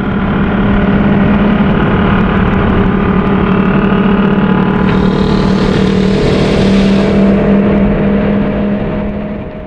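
Kawasaki 500SS Mach III two-stroke triple motorcycle engine running at a steady speed. A hissing noise joins for a couple of seconds around the middle, and the engine sound fades out near the end.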